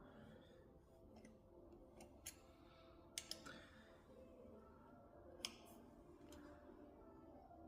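Very faint background music with a few sharp clicks, two close together around the middle and one more a couple of seconds later.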